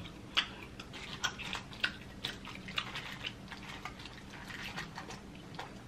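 Boiled crawfish shells clicking and crackling as hands dig and sort through a pile of them in a bowl, in short irregular clicks.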